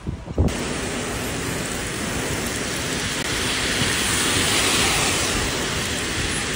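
Heavy rain pouring down on a flooded street: a dense, steady hiss that starts suddenly about half a second in.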